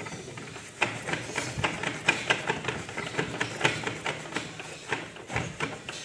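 Steel wire held in pliers being pushed and worked into a refrigerator's blocked defrost drain hole, giving irregular metallic clicks and scrapes several times a second.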